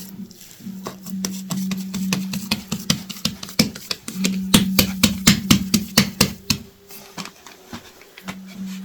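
A run of sharp knocks or slaps, up to about four a second in the middle and thinning out near the end, over a steady low hum that starts and stops several times.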